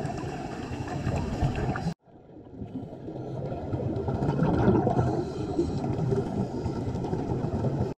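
Underwater ambient noise picked up by a diving camera: a low, rough wash of water noise. It cuts out abruptly about two seconds in and swells back up over the next couple of seconds.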